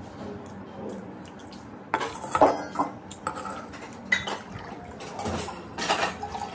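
Stainless-steel kitchen vessels clinking and knocking together as they are handled, a small steel shaker against a steel jug and tumbler. There are sharp metallic clinks with brief ringing, clustered from about two seconds in and again around five to six seconds in.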